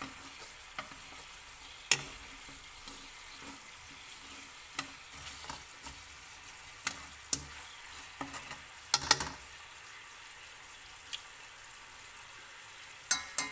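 Chicken wings sizzling steadily in a wok as they fry in a fish-sauce glaze, with sharp clacks of a utensil against the pan as they are turned. The loudest clacks come about 2 s in, around 9 s, and a quick cluster near the end.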